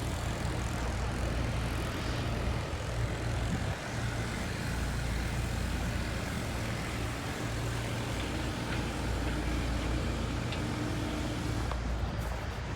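Steady low rumble of engine noise.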